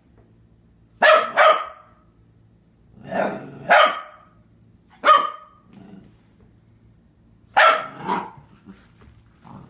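A 4-month-old Catahoula Leopard Dog puppy barking at her own reflection in a mirror. There are about seven sharp barks, singly or in quick pairs, a second or two apart.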